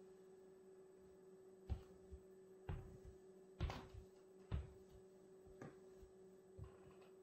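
Footsteps of black Nike MD Runner 2 sneakers on a laminate wood floor: about seven short thuds, roughly one a second, starting about two seconds in and weakening near the end.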